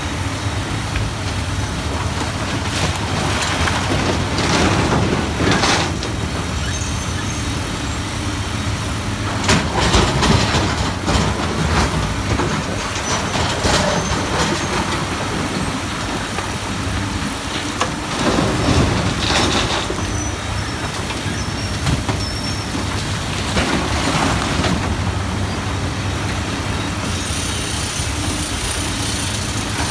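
Komatsu PC450 hydraulic excavator's diesel engine running steadily under load as it digs, with several bursts of rock scraping and clattering as the bucket tears into broken rock and dumps it into a truck.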